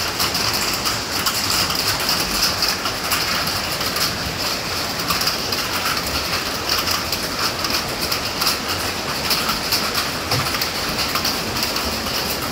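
Steady heavy rain, a dense pattering of drops striking a surface.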